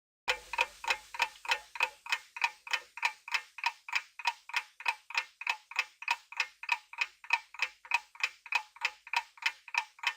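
Clock-tick sound effect of a quiz countdown timer: even, crisp ticks at about three a second, each with a slight ring.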